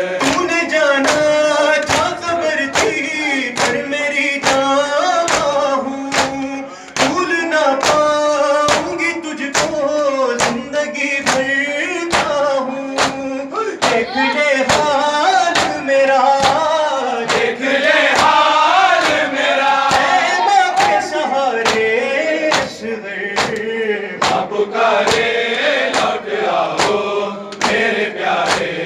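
A group of men chanting a noha, an Urdu mourning lament, in unison, with male reciters leading on a microphone. The crowd beats their chests in time, sharp slaps at a steady beat a little over once a second.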